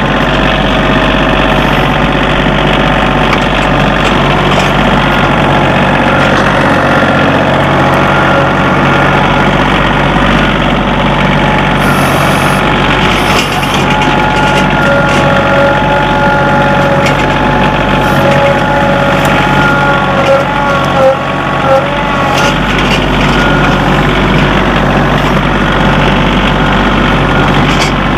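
John Deere compact tractor engine running steadily under the seat while the tractor drives, with a higher whine rising over it for several seconds in the middle. Two short knocks come about two-thirds of the way through.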